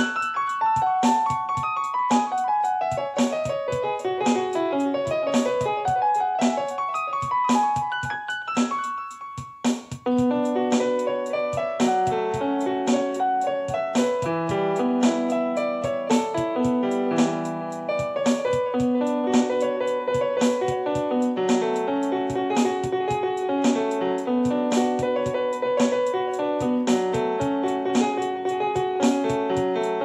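Instrumental piano beat: piano notes over a steady percussive beat. A run of notes steps downward, the music drops out briefly about a third of the way in, then returns with fuller low chords.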